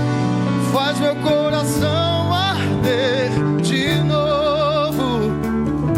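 Gospel worship band music, with a lead voice holding long wordless notes that slide into pitch and waver in vibrato over the band.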